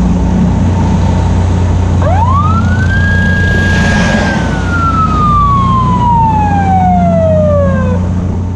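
A single siren wail: the tone climbs steeply about two seconds in, holds for a second, then slowly winds down, over a steady low engine rumble.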